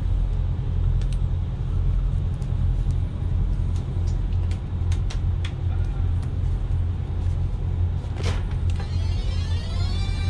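Hatteras motor yacht's Detroit Diesel machinery running at idle with a steady low rumble. Near the end comes a short electronic warble.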